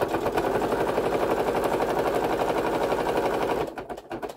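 Baby Lock Soprano sewing machine stitching at speed through two layers of fabric, a rapid, even mechanical rattle that stops near the end, followed by a few lighter clicks.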